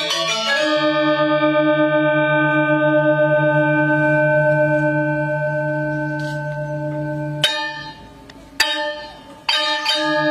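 Balinese gamelan metallophones struck with mallets: a loud chord rings on with a pulsing shimmer for several seconds, then three sharp struck accents about a second apart near the end, and the ringing picks up again.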